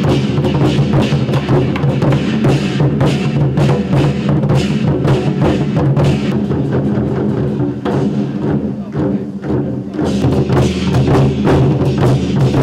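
Background music with drums and percussion keeping a steady beat.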